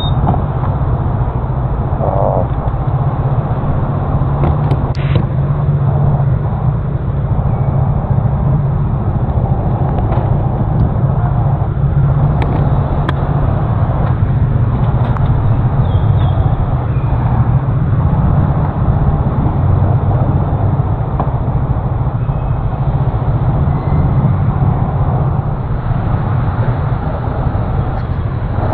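Steady wind noise on an action camera's microphone while riding a Honda Forza 350 scooter, over the scooter's engine and road noise. A few faint clicks show through.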